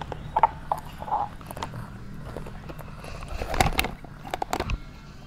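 A toddler crunching tortilla chips and rustling the foil chip bag, picked up close by a clip-on microphone: irregular crisp crunches and crinkles, thickest about three and a half to four and a half seconds in.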